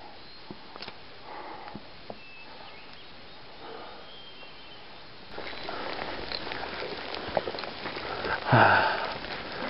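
Rain falling with scattered ticks of drops, growing louder about five seconds in, over footsteps on the trail; a louder rustle comes near the end.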